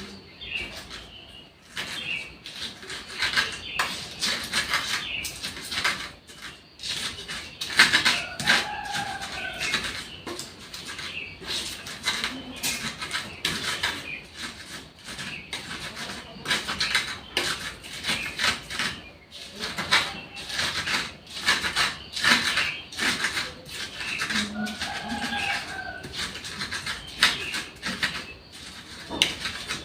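Stone pestle grinding red chillies for sambal in a stone mortar (cobek and ulekan): quick, irregular knocks and scrapes of stone on stone.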